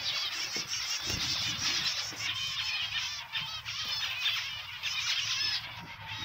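A flock of small cage birds chirping and chattering densely, many overlapping short calls, stopping just before the end.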